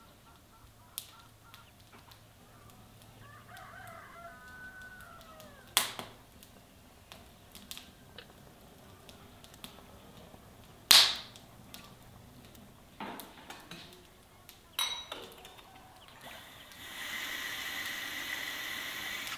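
Wood fire catching in a brick stove, with scattered crackles and two loud pops about six and eleven seconds in. A rooster crows faintly about three seconds in. From about sixteen seconds a brass kitchen tap runs steadily into a stone sink.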